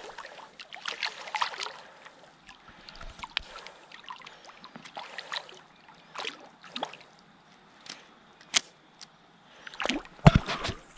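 Light splashing and trickling water with irregular clicks and knocks of handled fishing gear, as a hooked cod is played at the river's edge. The noises grow busier near the end.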